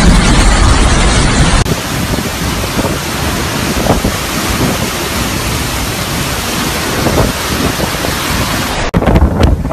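Hurricane wind and heavy rain: a loud, dense, steady hiss with wind rumbling on the microphone. The sound changes abruptly about two seconds in and again near the end, as one piece of storm footage cuts to the next.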